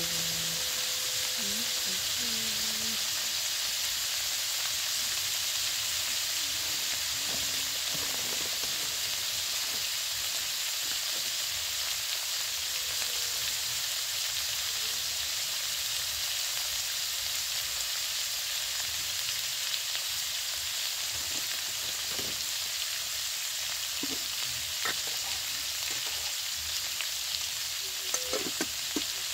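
Diced pork sizzling steadily in oil in a steel wok, with a few light clicks near the end.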